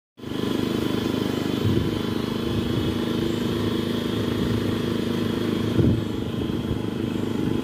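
Motorcycle engine running steadily at an even speed.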